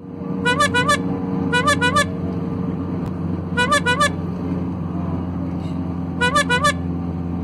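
A comic squeaky toot sound effect, three quick toots in a row, comes four times over the steady drone of a car cabin on the road.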